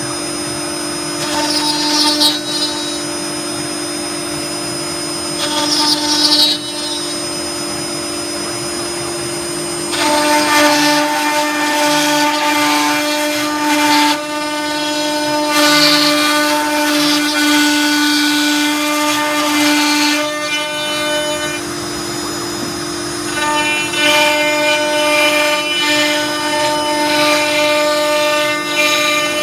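greenBull CNC router's spindle running with a steady whine while its bit cuts through a fibreboard sheet. The cutting noise rises and falls as the tool follows the part outlines, loudest from about ten to twenty seconds in and again near the end.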